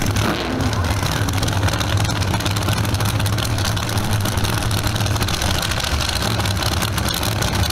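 Two drag-racing V8 engines idling loudly and roughly in a low, lumpy rumble, the cars sitting near the start line after their burnouts.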